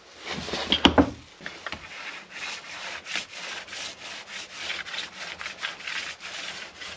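Paintbrush scrubbing white primer onto bare timber, a run of quick, even rubbing strokes, with a knock about a second in.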